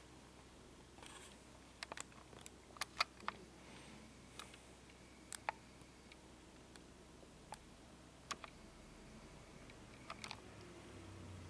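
Quiet room tone with scattered light, sharp clicks at irregular intervals, several close together in the first few seconds and a few more spread through the rest.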